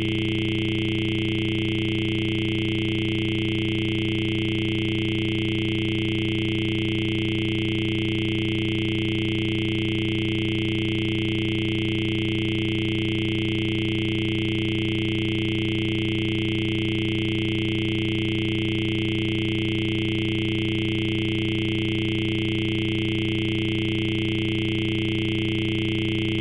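A steady electronic tone with several pitches sounding together, low and high, without any change in pitch or level.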